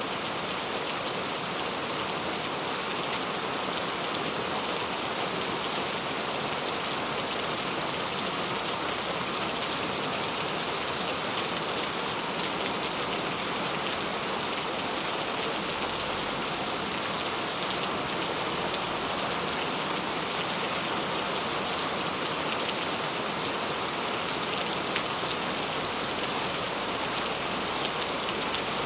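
Steady rainfall: an even hiss of many raindrops, with a few separate drop ticks now and then.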